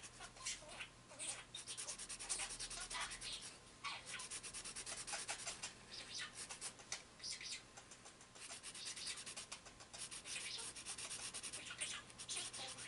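Ohuhu alcohol marker tip rubbing over coloring-book paper in many short, irregular strokes, laying a light grey base layer. The sound is faint and scratchy.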